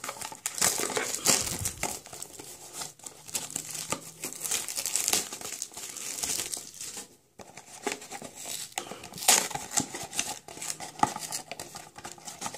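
Small cardboard blind box and its packaging being torn open and handled by hand: continuous crinkling and tearing with irregular crackles, broken by a short pause about seven seconds in.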